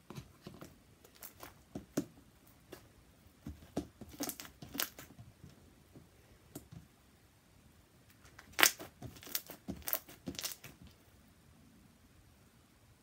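Sticky homemade slime, made stickier with body wash, worked by hand on a tabletop: irregular sharp pops and crackles as it is pressed and pulled apart. The pops come in bunches about four seconds in and again around nine to ten seconds.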